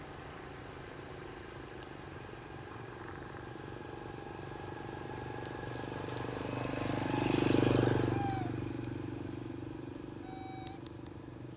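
A motor vehicle's engine passing by, its hum swelling to its loudest about two-thirds of the way through and then fading. A short high chirp sounds near the end.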